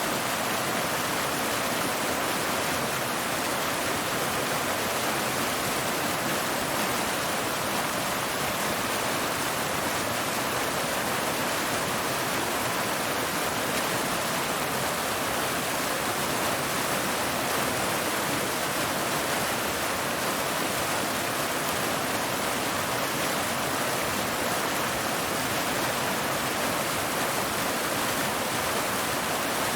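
Waterfall: water pouring steadily over rocks, an even, unbroken rush with no pauses or changes.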